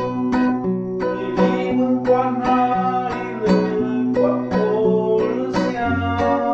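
Acoustic guitar strummed in a steady rhythm, chords ringing over an alternating bass line.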